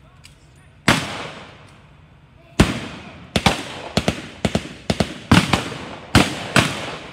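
Small-arms gunfire firing blanks in a battle re-enactment: a single shot about a second in, then a rapid, irregular string of a dozen or so shots from about two and a half seconds on, each with an echoing tail.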